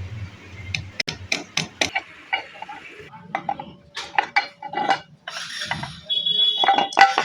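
Metal tools and engine parts clinking and knocking in irregular, short taps as a motorcycle engine's clutch side is opened up.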